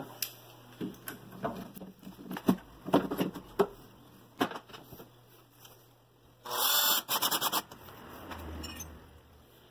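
Metal mortise lock body being fitted into its cavity in a wooden door's edge: scattered knocks and clicks, then a loud scraping rattle lasting about a second, a little past the middle, as the lock is pushed home.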